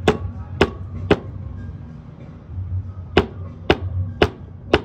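Hammer blows on metal, a sharp ringing knock about every half second: three, a pause of about two seconds, then four more. They drive a needle bearing into the pivot bore of a motorcycle swing arm.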